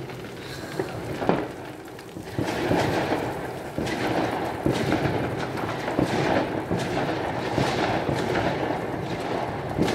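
Many fireworks and firecrackers going off at once, a near-continuous mix of bangs and crackling that gets denser and louder about two and a half seconds in.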